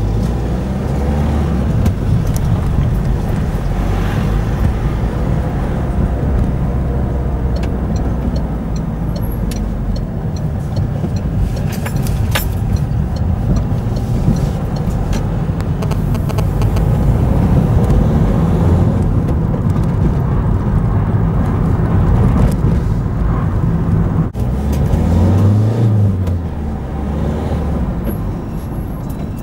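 Car engine and road noise heard from inside the cabin while driving, a steady low rumble. Near the end the engine note briefly rises and falls.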